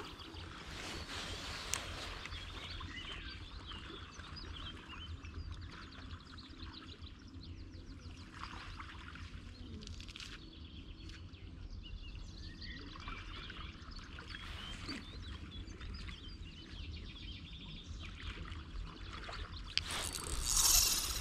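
Outdoor ambience: small birds chirping now and then over a low, steady rumble, with a loud close rustle near the end.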